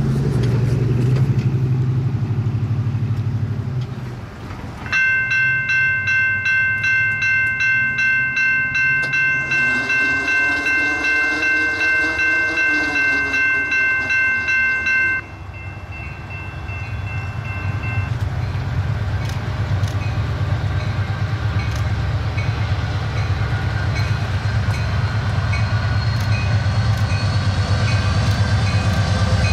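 Diesel locomotives of an approaching freight train rumbling, growing steadily louder through the second half. A bell rings about twice a second for some ten seconds and then stops suddenly, with a faint train horn sounding beneath it.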